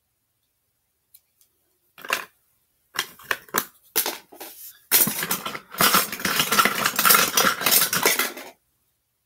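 Metal cutlery and kitchen utensils clattering and clinking as someone rummages through them for a clean one. A few separate clinks start about two seconds in, then continuous clattering for several seconds that stops shortly before the end.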